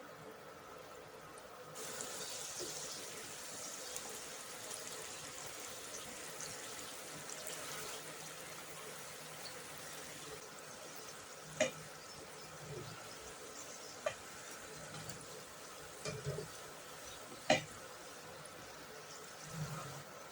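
Potato pieces frying in hot oil: a steady sizzle starts suddenly about two seconds in, then eases off, with a few sharp clicks of a utensil against the pan in the second half.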